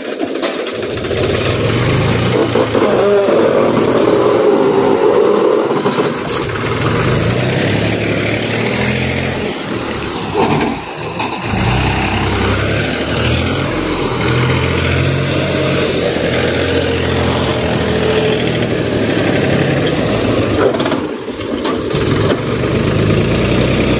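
Mahindra 275 DI Eco tractor's three-cylinder diesel engine running under load while pulling a loaded trolley, its engine speed rising and falling.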